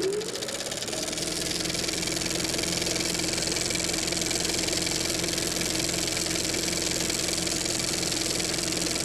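Small petrol engine revving up over the first second, then running steadily at a fast, even speed.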